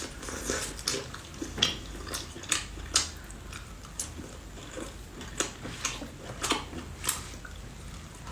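Irregular wet clicks and crackles of saucy seafood-boil shellfish being handled and eaten, about one or two sharp clicks a second over a soft wet background.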